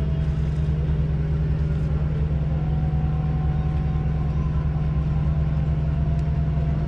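A large ship's engine idling nearby, a deep steady hum that does not change.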